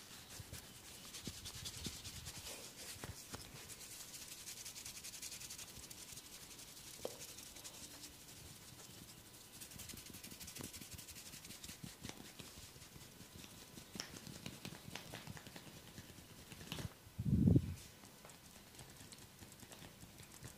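Hands massaging skin: soft, continuous rubbing and scratching with small crackles, and one dull thump about three-quarters of the way through.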